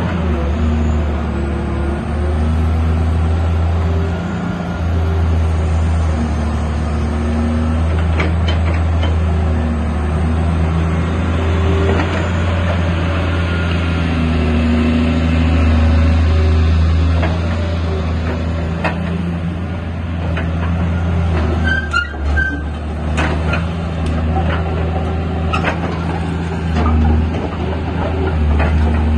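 Caterpillar 330C L excavator's six-cylinder diesel engine running at a steady idle, a deep even drone. A few short clicks occur, and there is a brief high squeak about three-quarters of the way through.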